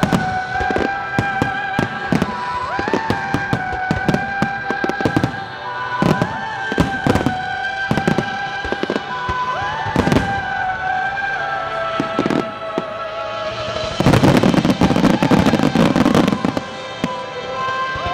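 Star mine fireworks display: rapid aerial shells and shots bursting one after another with sharp bangs, over music with long held notes. About three quarters of the way through, the bangs thicken into a dense, louder barrage with crackling for a couple of seconds.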